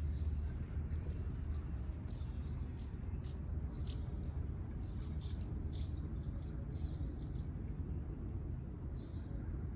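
Sparrows chirping in a quick run of short, high chirps that thin out to a few in the last two seconds, over a steady low rumble.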